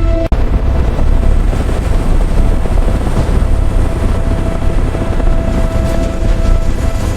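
A loud, steady low mechanical rumble, with a sustained musical drone under it. The sound cuts out for an instant just after the start.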